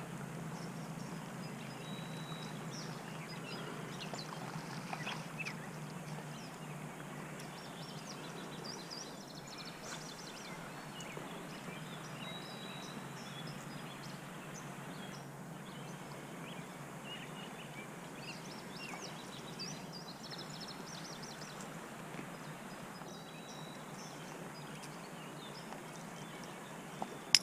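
Outdoor ambience: birds chirping now and then over a steady faint background rush.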